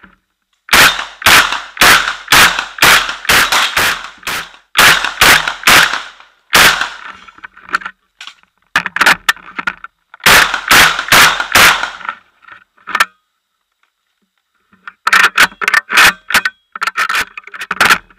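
Gunshots fired in quick strings at close range, about two to three shots a second, with a pause of about two seconds roughly two-thirds of the way through before the firing resumes.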